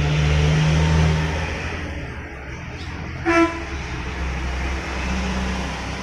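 Low, steady motor-vehicle engine rumble, loudest in the first second, with one short horn-like toot about three seconds in.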